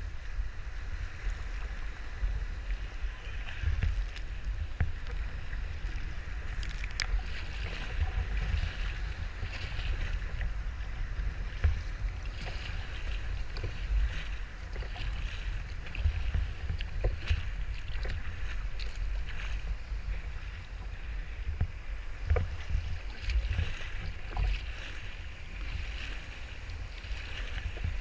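Wind buffeting the microphone in a gusting low rumble, over a steady hiss of choppy sea water washing and splashing around a sea kayak paddling through breaking waves.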